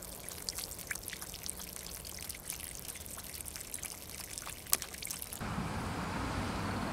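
Water trickling into a pond, with small irregular drips and splashes and one sharp click. About five seconds in, this cuts to a louder steady rushing noise, like wind or passing traffic.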